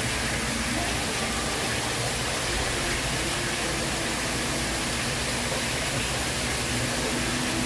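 Steady rushing of falling water from a waterfall or fountain, an even hiss at a constant level.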